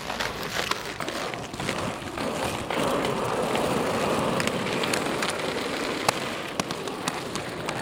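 Inline skate wheels rolling over rough concrete and pebbled paving: a gritty rolling noise that grows louder about two and a half seconds in, with scattered sharp clicks.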